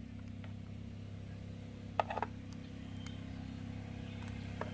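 A steady low hum underneath, with a sharp click about two seconds in and a few softer ones after it, as hands peel the skin off a fresh squid in a plastic basin.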